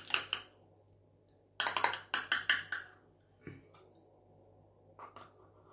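A metal teaspoon scraping and tapping thick caramel out of a measuring cup into a stainless steel bowl: quick clusters of clicks and scrapes at the start and again about two seconds in, a single duller knock at about three and a half seconds, and a few light taps near the end.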